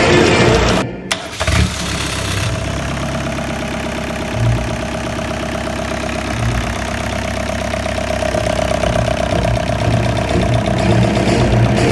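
Freshly rebuilt Perkins Prima M-60 four-cylinder marine diesel running. There is a brief break about a second in, then the engine runs on steadily with a constant whine over the diesel clatter.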